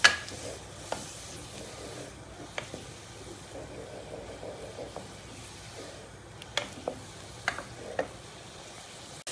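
A spoon stirring a simmering tomato-and-pea curry gravy in a pot, with a faint steady sizzle and a few sharp knocks of the spoon against the pot, the loudest right at the start and several more near the end.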